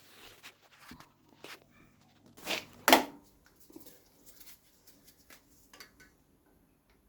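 A few scattered light clicks and knocks of something being handled, with two louder clunks close together about two and a half to three seconds in.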